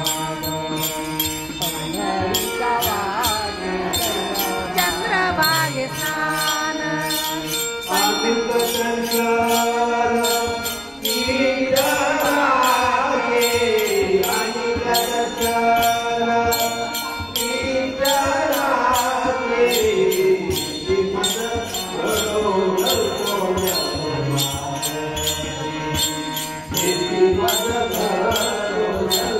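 A man singing a Marathi abhang, a devotional song, in long held and gliding phrases over a steady jingling beat.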